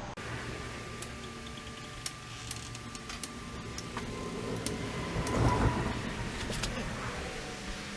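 Scattered light clicks and taps of hands and tools working on a car's engine bay, with a louder scuffing clatter about five and a half seconds in.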